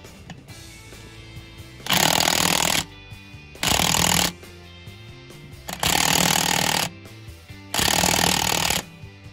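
Impact wrench hammering in four bursts of about a second each, tightening the nut on the bottom mount of a truck's new rear air spring.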